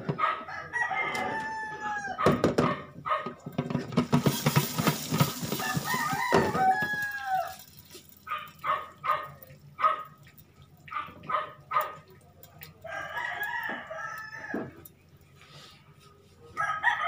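Chickens calling: several long arching crows with short clucking calls between them. A stretch of hissing noise comes about four seconds in.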